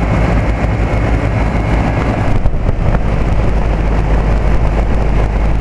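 Condensing unit of a 1998 Trane Odyssey commercial split-system air conditioner running steadily at full speed: a low compressor hum under the rushing of the condenser fan. It runs continuously, without cycling off.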